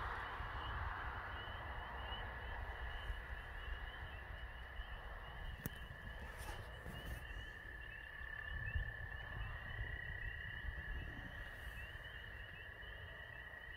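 Night chorus of calling animals: a steady high trill alongside a fast, evenly pulsed chirping, over a low rumble that rises and falls.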